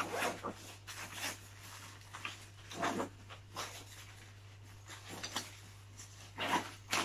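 Nylon fabric of a folded pop-up play tent rustling and swishing in short bursts as it is handled and packed into its storage bag, the loudest about three seconds in and near the end.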